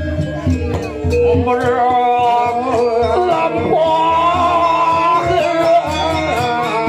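Balinese gamelan playing with steady percussion strokes. From about a second in, a performer sings a long, wavering chant over it.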